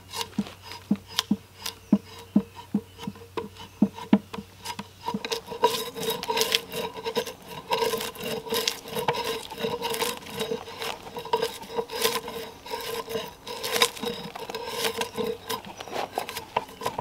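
A drawknife pulled along a log, scraping and peeling off the bark in repeated strokes. The strokes come quick and even, about three a second, at first; after about five seconds the scraping is denser and louder.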